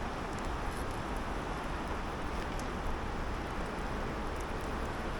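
Steady rush of a river running through rapids, a continuous even noise with a low rumble.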